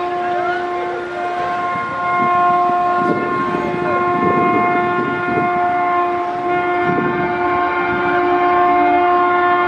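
Indian electric locomotive sounding its horn in one long continuous blast as the passenger express approaches, over the rumble of the train on the track. The horn turns fuller and brighter about two-thirds of the way through.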